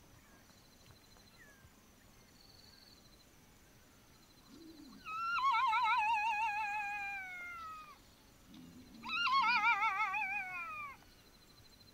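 Black-backed jackal howling: two long, quavering wails, the second about four seconds after the first, each sliding down in pitch as it goes.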